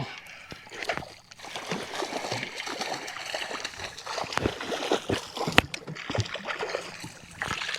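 A hooked pickerel splashing and thrashing at the water surface as it is brought in, a run of irregular sharp splashes, with one especially sharp one about halfway through.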